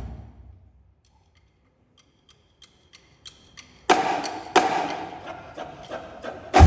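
A marching drumline's playing dies away, and after a brief hush about six evenly spaced stick clicks count off. Two loud accented drum hits ring out a little over half a second apart, lighter taps follow, and the full drumline comes back in just before the end.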